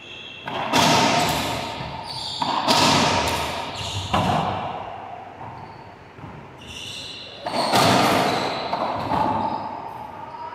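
Racquetball rally: several hard ball strikes off racquets and walls, each followed by a long ring of echo in the enclosed court, with short squeaks of court shoes on the hardwood floor in between.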